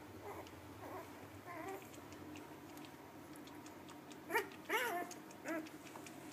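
Newborn husky puppies squeaking and whimpering: a few faint squeaks in the first two seconds, then three louder, higher cries in quick succession about four to five and a half seconds in, the middle one the longest.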